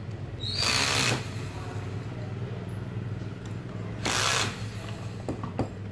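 Electric screwdriver driving screws into a fan motor's housing to tighten it: two short whirring bursts, the second about three seconds after the first.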